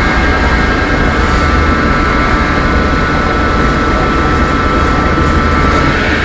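A portable fire pump's engine running loud and steady, with a constant high whine over a low rumble.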